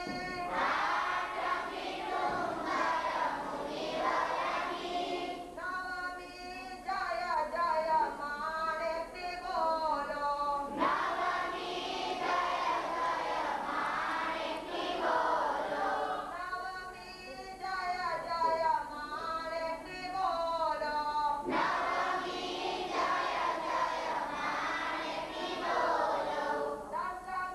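A large group of children and women singing a devotional prayer together in sung phrases.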